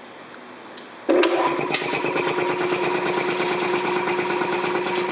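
A 1948 Brunner belt-driven piston air compressor, with a 2 hp electric motor, switches on about a second in. It comes up to speed at once and runs steadily with a fast, even pulsing and a mellow sound.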